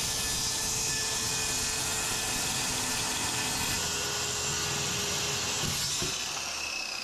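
Corded circular saw cutting across a sheet of plywood: a steady motor whine over the noise of the blade in the wood. About six seconds in, the cut ends and the saw's pitch falls as it spins down.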